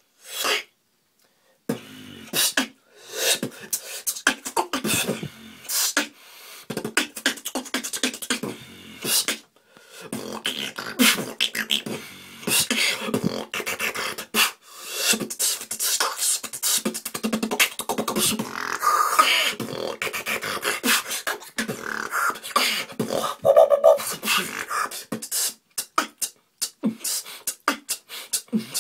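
One person beatboxing a freestyle: a fast, dense stream of mouth-made drum sounds, with brief breaks about nine and fourteen seconds in.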